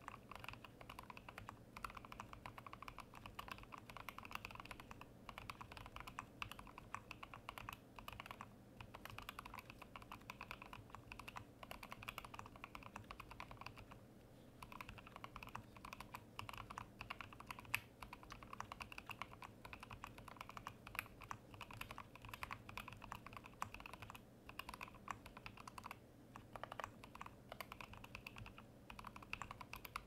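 Keystrokes on a Chicory BLE mechanical keyboard: Boba-housing switches with UHMWPE stems in a POM plate, under SA keycaps. The typing is fast and continuous, with a few short pauses.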